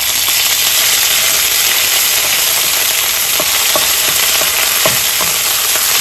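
Red curry paste frying in hot oil in a wok, a loud steady sizzle as it is stirred, with a few light taps of the spatula against the pan.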